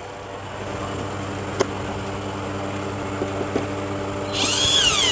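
Power drill with a T15 Torx bit running steadily, driving a bumper screw back in at the wheel well. A click comes about a second and a half in, and a loud high squeal rises and falls near the end.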